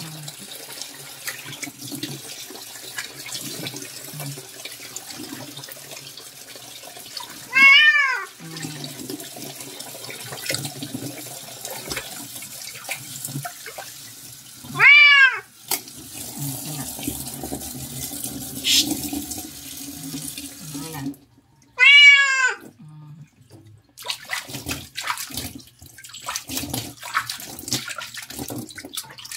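A cat meowing loudly three times, about seven seconds apart, while being bathed. Tap water runs and splashes steadily between the meows.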